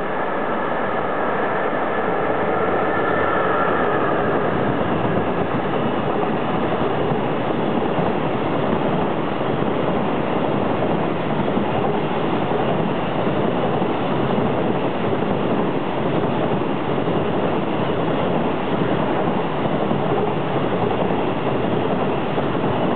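Freight train passing close by: a JR EF66-100 series electric locomotive comes past with a high whine in the first few seconds, followed by a long, steady rumble and clatter of container wagons rolling over the rails.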